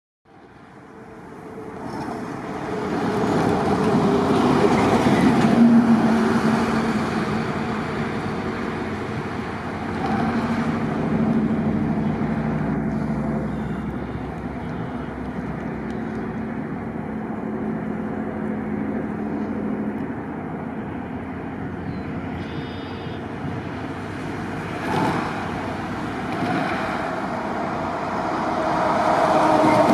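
EMD GP30M rebuild diesel locomotive running as it moves slowly through the plant, its engine note rising and settling. The sound fades in over the first few seconds, with a short knock about 25 seconds in.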